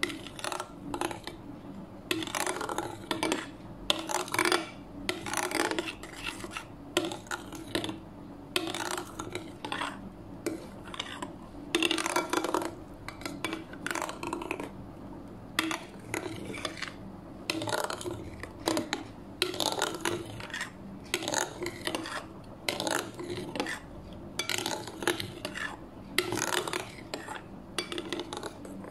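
Metal spoon stirring a creamy mixture in a glass bowl, scraping and clinking against the glass in repeated strokes.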